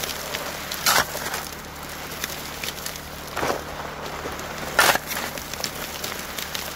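Shovelfuls of sand and gravel dumped into a highbanker's hopper: a gravelly crash every second or two, loudest about a second in and again near five seconds. Under them, the steady rush of water through the sluice.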